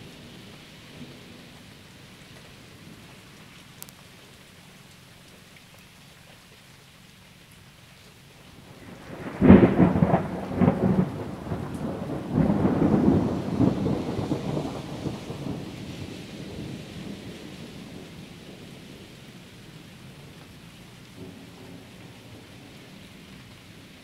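Steady rain with a sudden close thunderclap about a third of the way in, breaking into several loud rolling rumbles that fade away over several seconds, from a thunderstorm passing right overhead.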